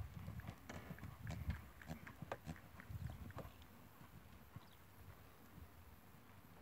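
A horse's hoofbeats at a trot on a sand arena: soft, irregular thuds and clicks. They are louder for the first three or four seconds, then fainter as the horse moves away.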